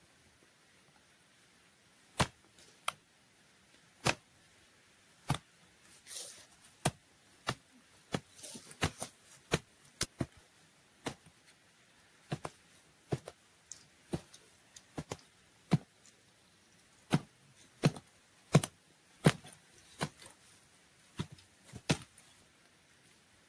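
A run of sharp chopping knocks, irregular, about one or two a second, the strikes growing louder in the second half.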